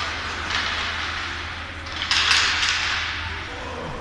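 Ice hockey game on the rink: skate blades scraping and hissing on the ice, with a louder, harsh scrape about two seconds in, over a steady low hum.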